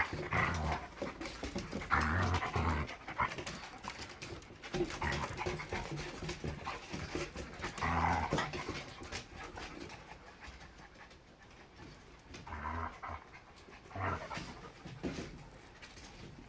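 Dog panting, with short louder bursts of dog sounds every few seconds.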